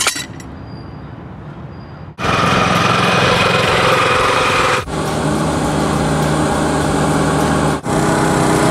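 Small engines of golf-course turf maintenance machines running, heard in short edited clips. The first two seconds are quieter, with a click at the start; the engine sound becomes loud about two seconds in and changes abruptly twice more, near five and near eight seconds.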